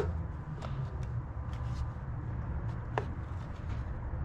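A few light clicks and taps as intake-kit parts are handled, over a steady low hum.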